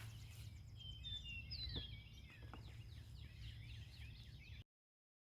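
Wild birds chirping and trilling, with a faint steady high-pitched hum behind them and a low rumble. The sound cuts off abruptly to silence near the end.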